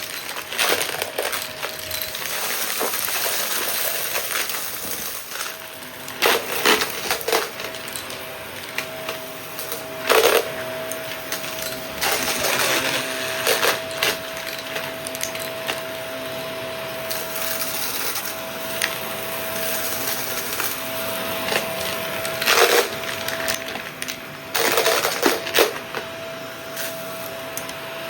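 Shark vacuum cleaner running with a steady whine. Several short crunching, rattling spells come as it sucks up bits of a small test mess.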